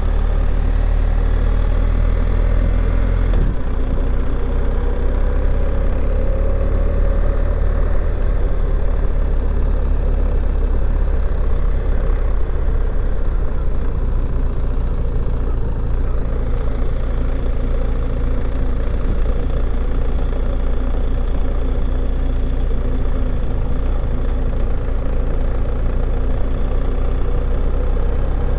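Steady engine and road rumble heard from inside the cabin of a moving vehicle, with a small shift in the low rumble a few seconds in.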